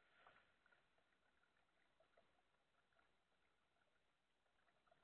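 Near silence, with faint scattered drips and small splashes of water around a kayak; a slightly louder cluster comes just after the start.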